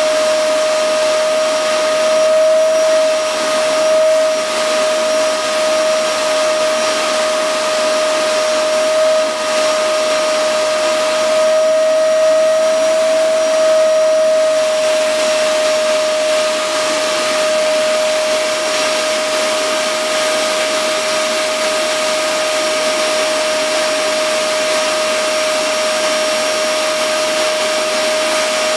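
Vacuum cleaner running steadily, fitted with a hose and brush nozzle, a constant whine over a rushing hiss. Its pitch rises slightly now and then.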